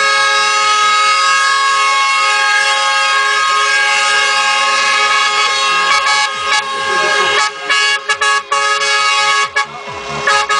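Truck air horns blowing together in a steady, loud, sustained chord, with the sound briefly cutting in and out several times in the last few seconds.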